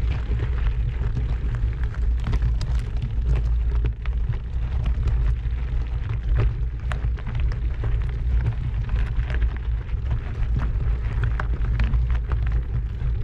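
Heavy wind buffeting on the microphone, a loud steady low rumble, with many small crackles and clicks throughout.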